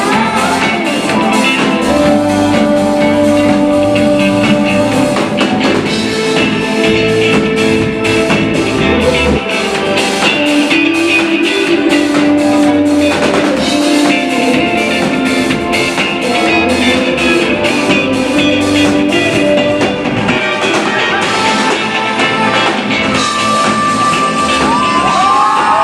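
Live rock band playing: a woman singing into a microphone over a driving drum-kit beat and electric bass guitar, with held sustained notes.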